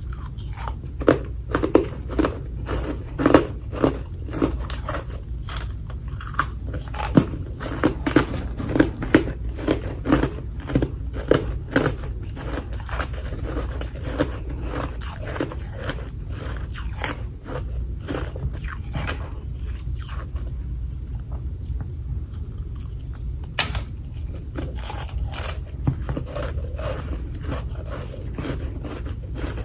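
Person biting and chewing chunks of humidifier freezer frost: a quick run of loud, crisp crunches for the first dozen seconds, then softer chewing with one sharp crack a little past two-thirds of the way through.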